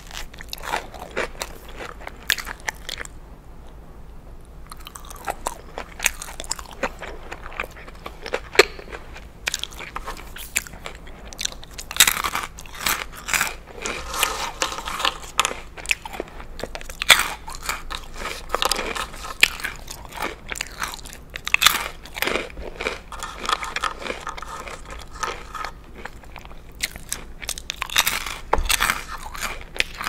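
Close-miked biting and chewing of a toasted grilled cheese sandwich and Cheez-It crackers dipped in tomato soup: many crisp crunches, with quieter chewing between them.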